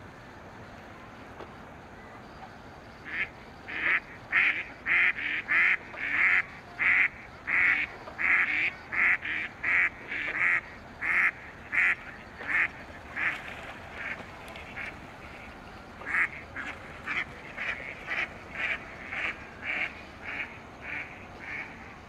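Ducks quacking in a long, regular run of loud calls, about two a second, starting about three seconds in, easing off briefly and then picking up again. The calling is the ducks' answer to the town's public chime, which they join in with.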